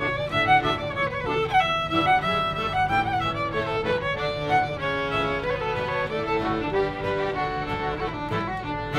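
Live acoustic band playing an instrumental pirate tune on fiddle and accordion, with acoustic guitar accompaniment.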